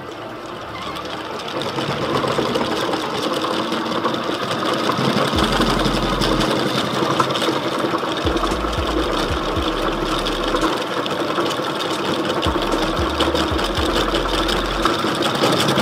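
Cricket-bat handle-wrapping machine running, spinning the bat while twine winds onto the handle: a steady motor whir that builds up over the first two seconds, then holds.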